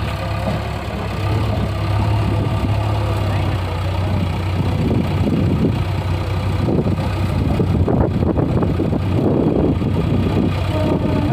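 Diesel engine of a JCB 3DX backhoe loader running with a steady low hum. From about halfway in, irregular clattering joins it.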